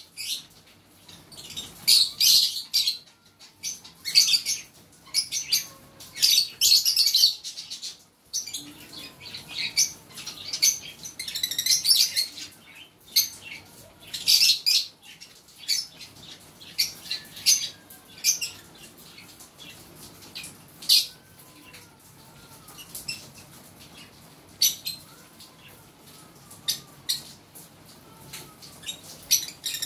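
Fischer's lovebirds chattering in shrill, high-pitched chirps, in dense bursts through the first half, then sparser separate chirps.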